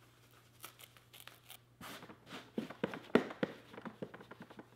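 Foam and a padded pouch being pushed and fitted into the foam insert of a Pelican 1510 hard plastic case: scattered rustling, scraping and light knocks, sparse at first and busiest in the second half, with one sharper knock past the middle.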